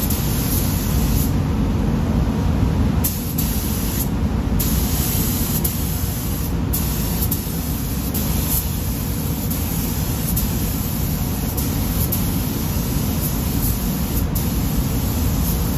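Gravity-feed automotive paint spray gun hissing as it sprays paint onto a bumper cover, over a steady low rumble. The hiss breaks off briefly a few times between passes.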